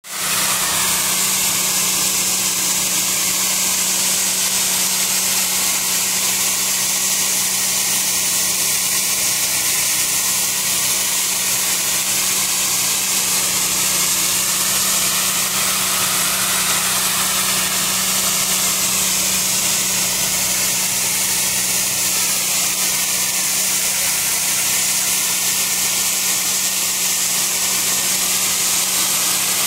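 Hot-water pressure washer jet spraying hard onto a concrete floor to strip heavy carpet glue: a steady, loud hiss over a steady low hum from the machine.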